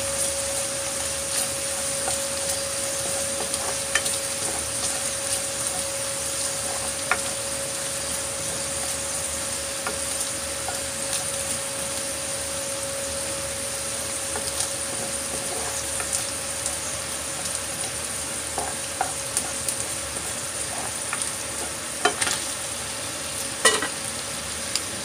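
Ground beef and garlic sizzling in oil in a ceramic-coated frying pan while a plastic spatula stirs and scrapes through them, with scattered clicks and a couple of sharper knocks near the end. A steady hum from a kitchen exhaust fan runs underneath.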